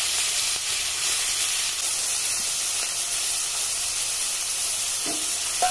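Small prawns frying in hot oil in a steel karahi, a steady high sizzling hiss, with a brief metallic ring near the end.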